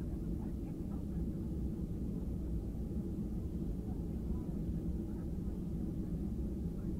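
Steady low cabin rumble of a Boeing 737-800 taxiing, its CFM56 engines at low thrust, heard from a seat over the wing, with faint passenger chatter in the background.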